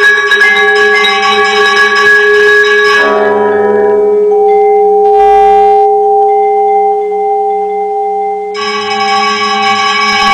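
Vibraphone played with mallets in rapid strokes against a pre-recorded tape part. A busy, ringing texture gives way about three seconds in to long held tones, and the dense strokes return near the end.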